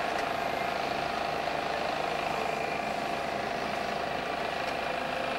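Small four-wheel-drive jeep's engine running steadily as it tows a loaded trailer away.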